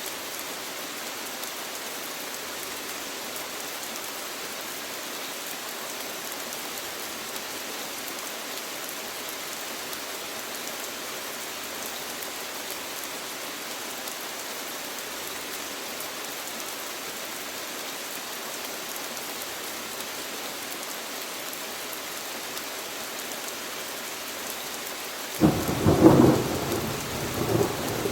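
Steady rain falling, an even hiss. About 25 seconds in, a sudden loud rumble breaks in and surges for a couple of seconds.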